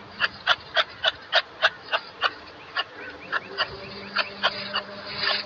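Kangaroo making a rapid series of short, sharp clicking calls, about three to four a second, with a couple of brief pauses.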